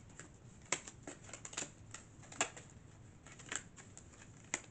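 Tarot deck being shuffled by hand: a string of sharp card clicks and snaps at uneven intervals.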